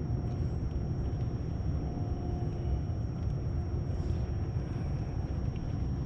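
Steady low rumble on a fishing boat, with a faint hum that comes and goes.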